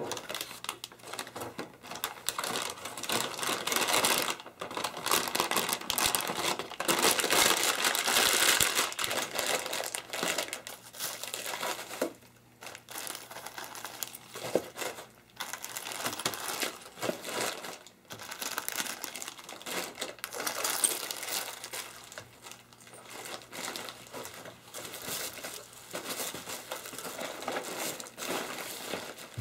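Crinkling and rustling of silver foil-like packaging as it is handled and unwrapped, irregular and crackly, loudest in the first third.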